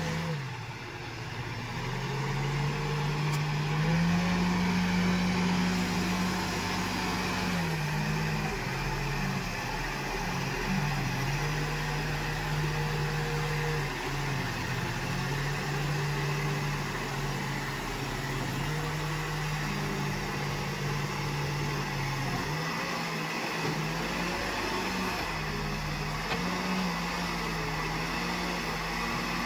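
Escorts Digmax backhoe loader's diesel engine running steadily while the backhoe arm is worked, its engine note stepping up and down every few seconds.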